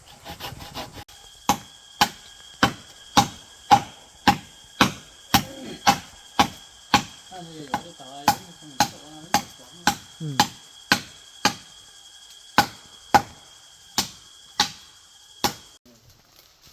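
Steady chopping into a fishtail palm (đùng đình) trunk to get at its edible core: about two sharp blows a second, which stop shortly before the end. A faint steady high tone runs under the blows until then.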